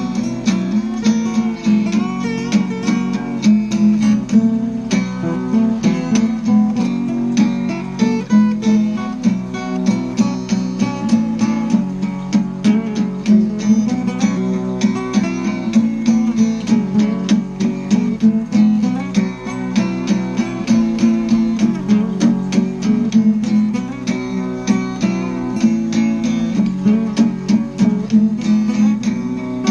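Background music: a rapidly plucked and strummed acoustic guitar.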